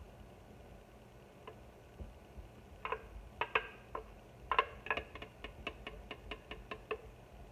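A spoon or spatula tapping against a plastic blending jug to knock out the last of a thick garlic sauce: a few scattered clicks, then a quick run of light ticks, about five a second, for a couple of seconds.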